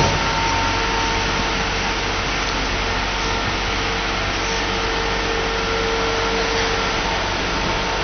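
Hyundai HL757-7 wheel loader's diesel engine running steadily under hydraulic load as the boom lifts the bucket, with a faint steady whine coming and going over the engine noise.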